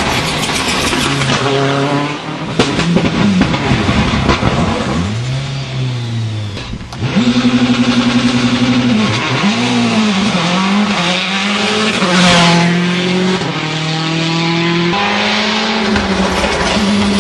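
Citroën C4 WRC rally car's turbocharged four-cylinder engine revving hard as the car passes at speed, its pitch climbing and dropping again and again through the gear changes. The sound changes abruptly a few times where separate passes are cut together.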